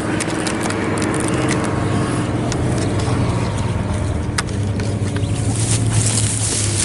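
Engine running steadily with a low, even hum. A few short, sharp clicks sound over it.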